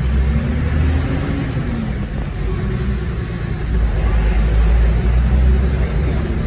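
Low engine and tyre rumble heard from inside a 4x4's cab as it drives slowly over a rough dirt track, with a brief rise and fall in engine pitch about a second in and the rumble swelling louder a few seconds later.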